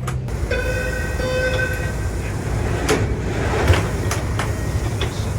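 Interior door chime of an MBTA Orange Line subway car: one held electronic tone lasting about a second and a half, over the car's steady low rumble. A few sharp knocks follow in the second half.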